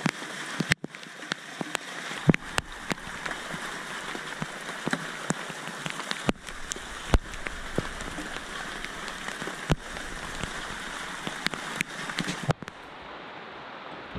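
Heavy rain pattering steadily, with many sharp, close raindrop hits. About a second and a half before the end it turns quieter and duller.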